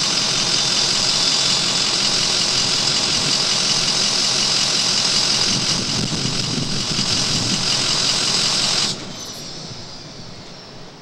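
Ford 6.0L Power Stroke V8 turbodiesel idling through a straight-pipe exhaust, with a steady high turbo whistle and hiss over the engine. About nine seconds in the sound stops abruptly, leaving only a faint falling whistle.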